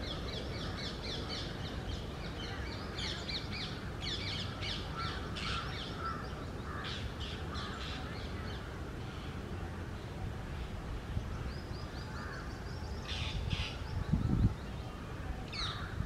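Birds calling: runs of rapid, short, high chirping notes, densest in the first half, with a few lower calls among them. A brief low rumble about fourteen seconds in.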